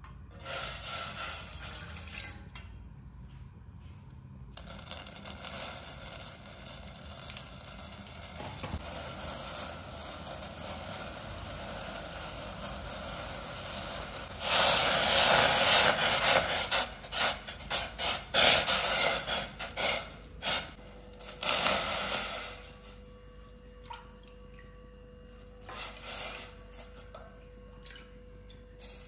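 Water poured from a steel container into a stainless steel saucepan, then a steady hiss as the pan heats on a gas burner. About halfway in, a dark liquid in the pan comes to a loud, sputtering rolling boil, which settles to a quieter simmer with a few light clinks near the end.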